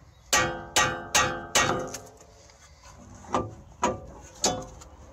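Hammer knocking the lower bolt out of a rear suspension knuckle, metal on metal: four hard blows about 0.4 s apart, each ringing on briefly, then after a pause three lighter blows about half a second apart.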